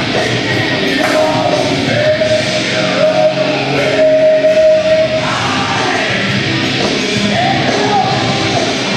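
Loud heavy rock music with a singing voice, playing as a wrestler's entrance music; the singer holds long notes near the middle.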